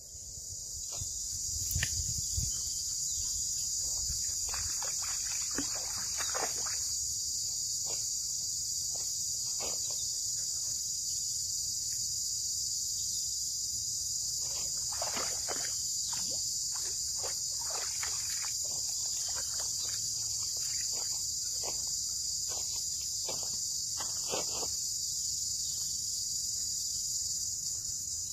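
A loud, steady, high-pitched insect chorus keeps up without a break, with a few short, faint sounds scattered over it.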